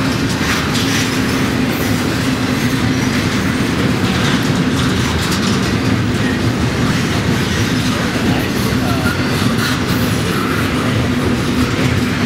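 A train rolling steadily, with the even rumble of the cars on the rails and a steady low hum.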